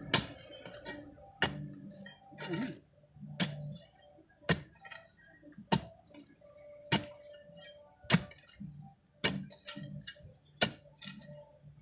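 A metal digging tool striking hard, stony ground again and again, about once a second, with sharp clinks as it hits rock, and some scraping of soil between strikes.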